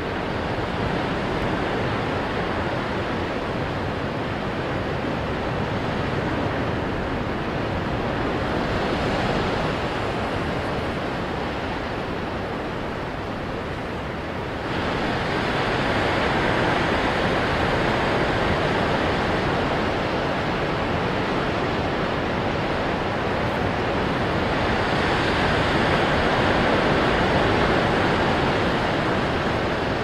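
Ocean surf breaking and washing ashore: a steady rushing hiss that slowly swells and eases. About halfway through it abruptly jumps louder and brighter.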